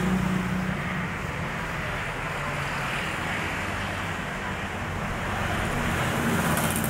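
Steady street traffic noise of passing motorbikes and cars, with a low engine hum that is strongest about the first second and then fades into the general traffic.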